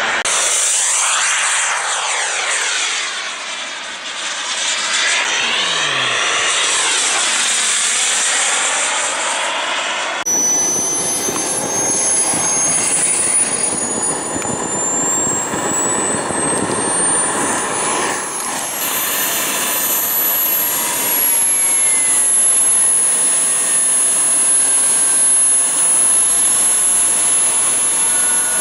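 Radio-controlled model jet engine noise. First a fast model jet passes overhead, its sound sweeping as it goes by. Then comes the whine of a model jet on the ground, rising in pitch over several seconds and settling into a steady high-pitched whine.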